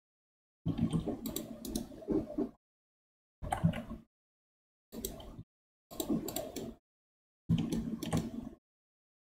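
Computer keyboard keys and mouse clicks, in five short clusters of clicking, each starting and cutting off suddenly with dead silence between.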